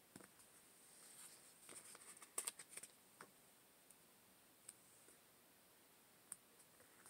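Faint rustling and a few small clicks of paper planner stickers being peeled from their sheet and pressed down onto a planner page by fingertips, mostly in the first three seconds, then a couple of lone ticks.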